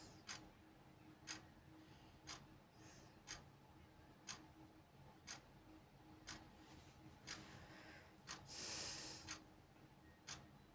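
Faint clock ticking, about one tick a second. A brief hiss sounds about eight and a half seconds in.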